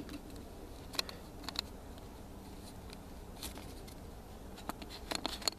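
A few faint, scattered plastic clicks and scrapes as the white cap of an orange plastic pill bottle is worked and twisted open, with a small cluster of clicks near the end.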